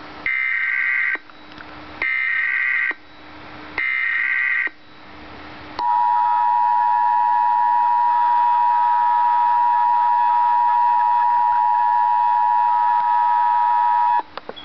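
Emergency Alert System signal: three short bursts of SAME digital header tones, each just under a second and about a second apart. Then comes the two-tone attention signal, a loud steady dual tone held for about eight seconds that cuts off near the end.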